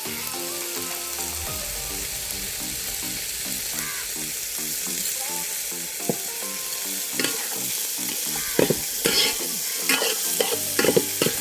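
Chilli pickle mixture sizzling in coconut oil in a pan on the stove, with a spoon stirring it and scraping and knocking against the pan. The knocks come more often in the second half.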